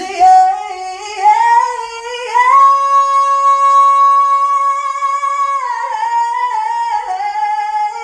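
A single high voice singing unaccompanied. It climbs in steps to a long held high note of about three seconds, then steps back down to a lower note.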